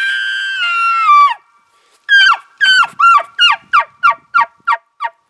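Primos Bull Horn elk bugle blown to imitate a bull elk: a loud high bugle note held, stepping down in pitch and breaking off about a second and a half in, then about nine short chuckles, each sliding down in pitch and coming quicker toward the end.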